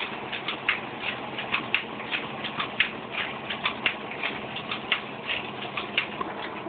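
RotaPrint R95 sheet-fed offset press running and printing: a quick, slightly uneven clatter of clicks, about four a second, over a steady mechanical hum.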